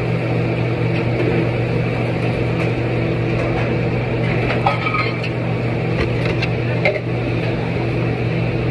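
A steady mechanical hum, with a few light clinks and knocks about halfway through.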